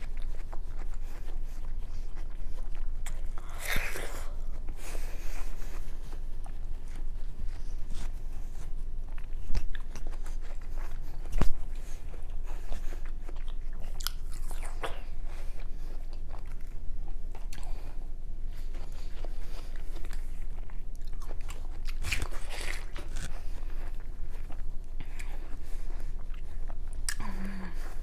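Fresh watermelon being bitten and chewed fast, with wet, crunchy bites and chewing close to the microphone. Louder bites come about four seconds in and again past the twenty-second mark.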